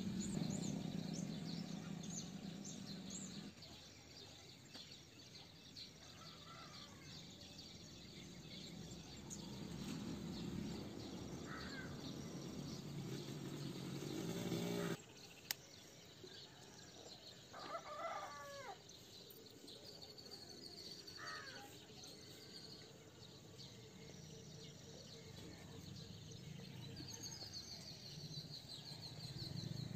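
Faint outdoor ambience: small birds twittering, with a few short chicken calls now and then.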